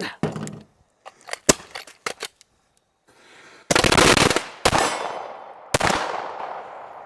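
A string of 9mm pistol shots mixed with the pops of a handheld Roman candle. Several sharp cracks come in the first two seconds, then a loud dense stretch of noise about four seconds in, then two more loud shots with long echoing tails.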